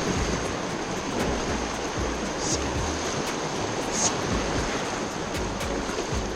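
Whitewater of a river rapid rushing and splashing around an inflatable kayak, a steady dense roar. Irregular low thumps come from water and wind buffeting the action camera's microphone.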